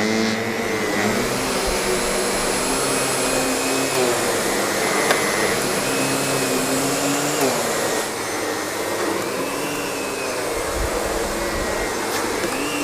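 Canister vacuum cleaner with a power nozzle switching on abruptly and running steadily, with a thin high whine above the motor noise that fades out about eight seconds in, after which it runs slightly quieter.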